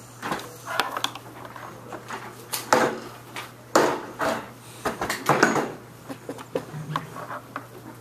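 Irregular knocks, clatter and rustling of people settling into seats and handling papers, with a few louder clattering knocks in the middle.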